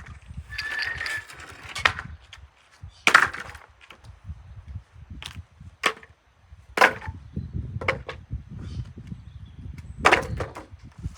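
A series of sharp, irregular knocks and cracks, about seven in all and unevenly spaced, over a low rumble.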